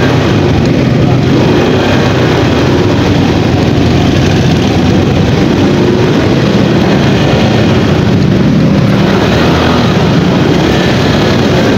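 Motorcycle running steadily while being ridden, heard as a loud, unbroken rush of engine and road noise.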